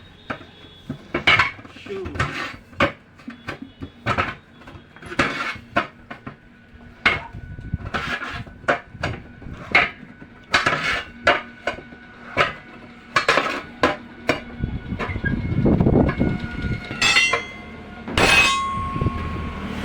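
Steel tyre levers clanking against a tractor wheel's steel rim as the bead of a 13.6-28 tyre is pried out over the rim: repeated sharp metallic clanks and knocks, about one or two a second, pausing briefly near the end.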